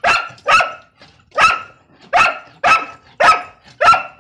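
Brown pointer dog barking, seven loud, short barks in a row, about one every half second to second.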